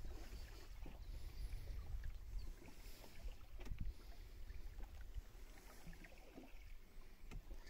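Small boat moving slowly on calm river water: gentle splashes and drips around the hull, with a couple of short knocks, about midway and near the end. Low wind rumble on the microphone runs underneath.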